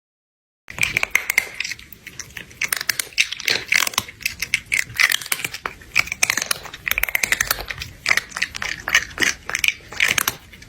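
Rapid, irregular crunching and crackling that starts suddenly about a second in and cuts off just at the end.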